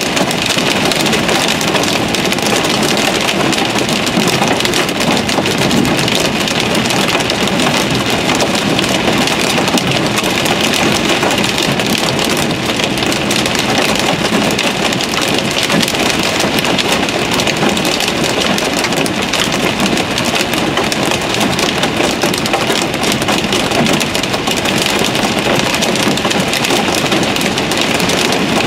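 Hail falling hard on a car, heard from inside the cabin: a dense, steady patter of impacts on the roof and windshield.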